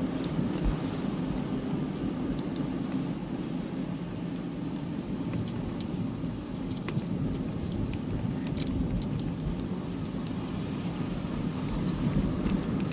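Car cabin noise while driving: a steady low rumble of engine and road, with a few faint ticks.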